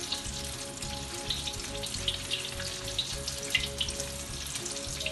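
Chicken strips frying in hot oil, a steady sizzle with scattered sharp crackles, under faint background music.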